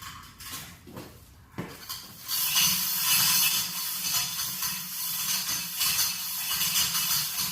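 Chain fall being hand-pulled: its steel chain links clink and rattle through the hoist, after a couple of knocks early on. From about two seconds in the clattering runs on steadily.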